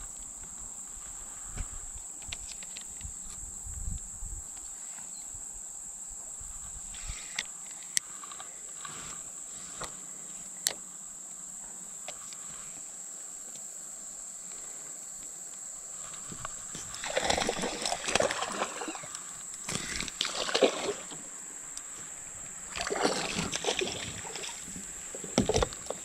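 Water sloshing and splashing around a kayak in a few louder stretches over the second half, after scattered small clicks and knocks from fishing gear being handled in the boat.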